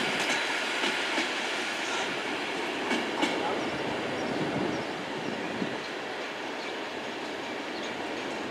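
Class 390 Pendolino electric train pulling out, with a steady rushing noise and wheels clicking over rail joints. It eases off slightly about halfway through.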